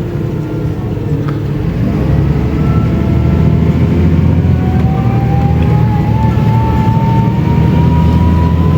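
Mercedes-Benz O500U city bus with a ZF automatic gearbox under way, its engine running with a deep hum that grows louder about two seconds in, as the bus pulls harder. From about the middle, a thin whine rises steadily in pitch as the bus gathers speed.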